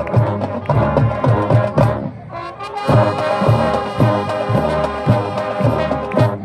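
High school marching band playing, with brass and drums at a steady beat. About two seconds in the music briefly thins, then the brass holds long sustained notes over drum hits, stopping near the end.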